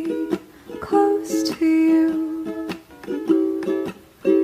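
Music: a strummed string instrument playing chords in a steady rhythm.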